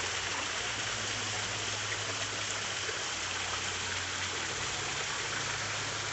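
Artificial rock waterfall pouring down a concrete rock wall into a swimming pool: a steady rushing splash of water, with a steady low hum underneath.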